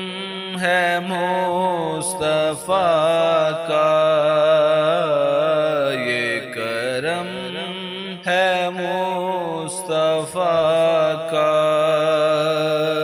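A naat being sung: a voice carries a wavering, ornamented melody over a steady low drone, with short breaths between phrases.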